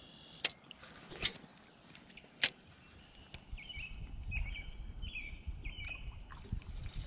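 Three sharp clicks from a spinning rod and reel being handled, the loudest about two and a half seconds in. Then a bird calls a series of about five short, repeated notes over a low rumble.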